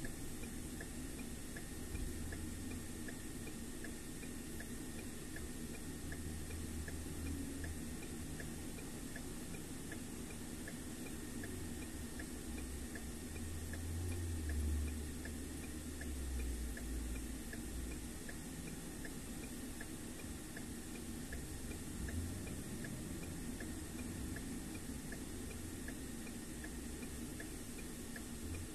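Car driving on a highway: a steady low road and engine rumble that swells and fades, with a faint regular tick a little faster than once a second.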